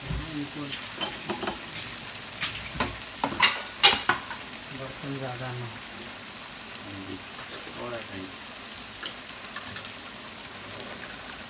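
Chopped onions frying in hot mustard oil in a kadhai, a steady sizzle, with a spoon stirring them around the pan. About three to four seconds in, the spoon clacks and scrapes sharply against the pan several times.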